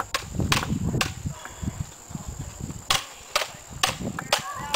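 Hollow plastic toy lightsabers clacking together in a duel: a series of sharp knocks in two flurries, several in the first second, then a pause, then a few more about three seconds in.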